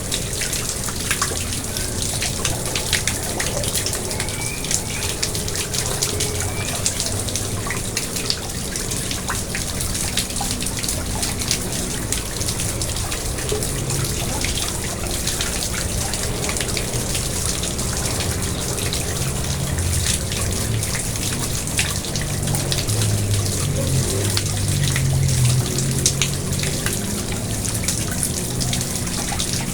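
Garden pond water trickling and splashing steadily, with many small drips.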